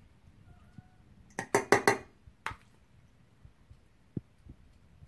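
A quick run of about five sharp knocks about a second and a half in, each with a short ring, then a single knock about a second later.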